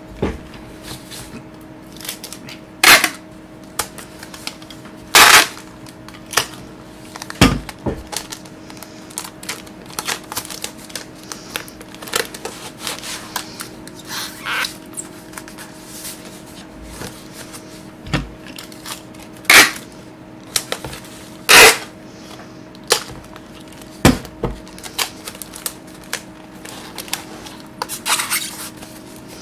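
Packing tape being pulled, torn and pressed down while a corrugated cardboard book wrap is handled: irregular sharp snaps and crackles, a handful of them loud, over quieter rustling of cardboard.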